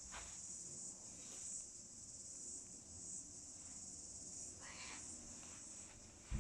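Crickets chirping steadily in the background, with a few brief rustles and a short low thump near the end.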